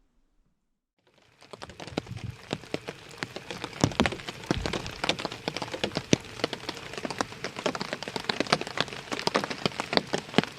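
Rain falling, with many sharp individual drops striking close to the microphone in an irregular patter; it starts about a second in, after a moment of silence.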